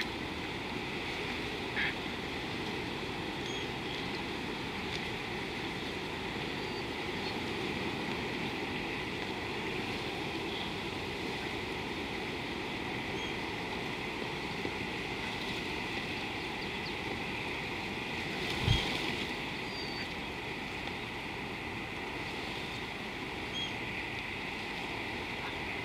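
Steady outdoor bush ambience: an even hiss and rumble with a faint high hum, a few short bird chirps, and one dull thump about two-thirds of the way through.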